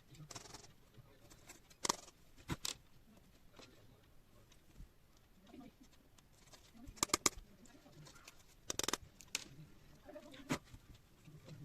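Slime being squished and stretched by hand, giving sharp wet pops and clicks at irregular intervals, with a quick run of several pops about seven seconds in.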